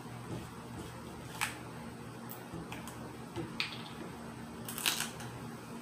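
Hands working a plastic bottle of Clonex and its cap: a few scattered sharp plastic clicks, with a louder short rasp near the end, over a low steady hum.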